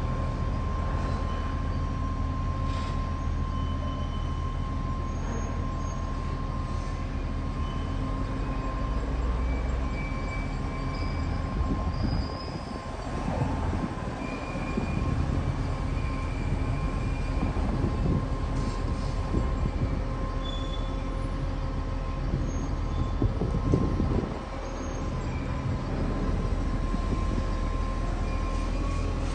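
Heavy machinery running steadily, a constant high whine over a low hum, with a couple of brief dips in level, in the way of a rail-mounted car rolling on its track.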